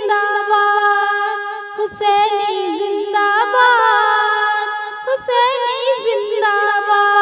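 A woman singing a naat in a high voice, with no clear words: three melodic phrases, each opening with quick ornamented runs and settling into a long held note.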